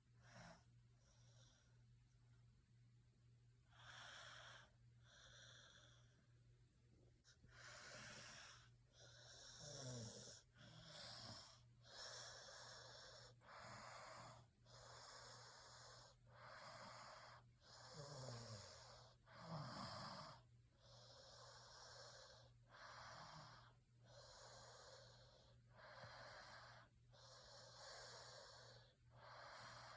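Faint sleep breathing with wheezy snores: breaths that come about one a second after the first few seconds, and a few low falling snorts, over a steady low hum.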